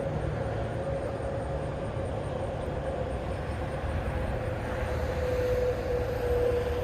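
Steady mechanical drone over a low rumble, with a sustained whine that slowly drops in pitch.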